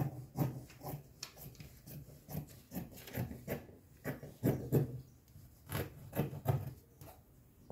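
Scissors cutting through cotton tricoline fabric: an irregular run of crisp snips, about two to three a second.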